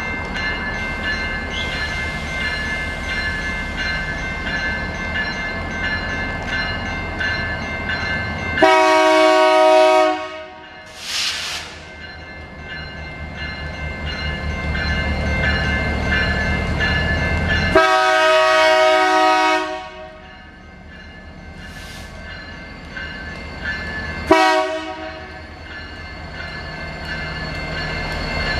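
Railroad crossing's General Signals Type-2 electronic bell ringing steadily while an approaching locomotive's air horn sounds the grade-crossing pattern: a long blast about nine seconds in, a second long blast, then a short one near the end. A low rumble grows louder between the first and second blasts.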